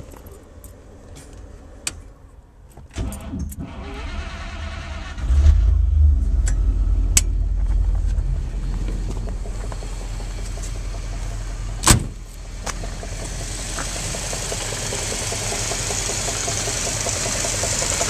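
A few small switch clicks, then the 1953 Cadillac's 331 V8 is cranked and catches about five seconds in, settling into a steady idle. A single sharp bang comes about twelve seconds in while the engine idles on.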